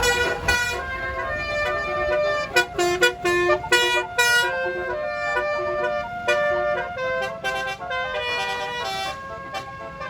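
Bus 'telolet basuri' multi-note musical air horn playing a melody: held notes stepping from pitch to pitch, with a run of short, quick blasts in the middle.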